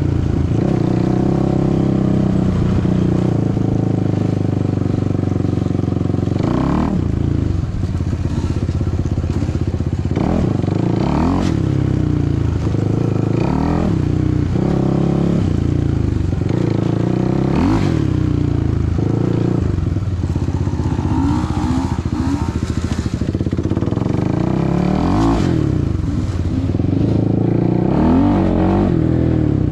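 Suzuki LTR 450 quad's single-cylinder four-stroke engine running under way, its revs climbing and falling back about ten times as the throttle is worked.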